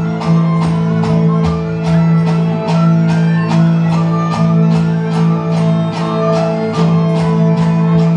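A live folk band plays a Portuguese dance tune. Fiddle and plucked strings play over a steady beat, with a low note held underneath.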